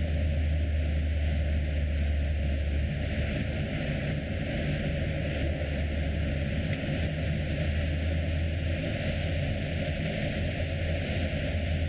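A car driving at a steady speed: a constant low engine and road hum with an even noise of tyres and wind over it, unchanging throughout.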